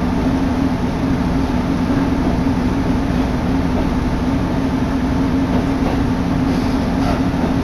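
Diesel railcar on the Kururi Line running along the track: a steady engine drone and low rumble, with wind blowing in through an open window and across the microphone.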